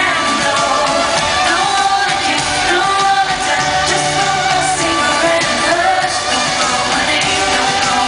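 Loud live pop music in an arena: a woman singing over an electronic dance-pop backing track, with a low bass figure returning about every two seconds. Recorded from among the audience.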